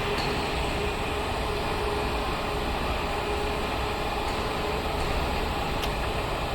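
Electric welding rotator running: its drive motor and rollers make a steady mechanical noise with a faint constant tone.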